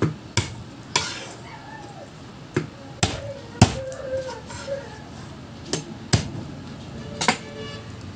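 Kitchen knife knocking on a wooden chopping board while garlic and onion are cut: about nine sharp separate knocks at uneven spacing, the loudest a little past the middle.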